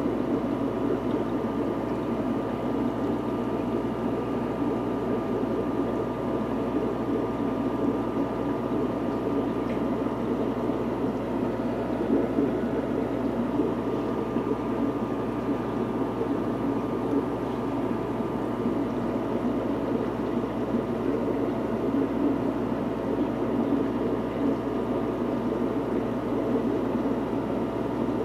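Aquarium sponge filter and its air pump running: a steady hum with a constant, even bubbling of water.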